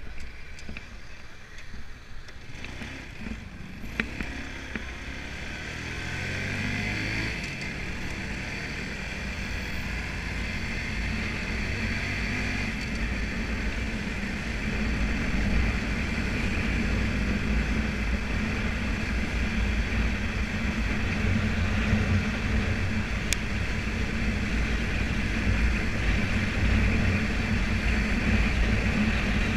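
Motorbike engine pulling away, its note rising through the first several seconds, then running at speed under a growing rush of wind and road noise.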